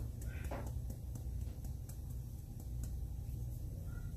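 Faint light ticking of a metal mesh strainer as flour is sifted into a steel bowl, over a steady low hum, with a short falling squeak about half a second in.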